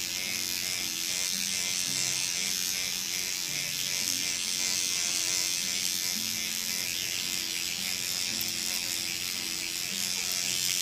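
Electric microneedling derma pen running with a steady, high-pitched motor buzz as it is worked over the skin of the face.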